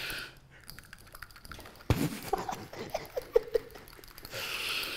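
Cream being beaten by hand in a small ceramic mug: rapid light clicks of the utensil against the cup, with a sharper knock about two seconds in.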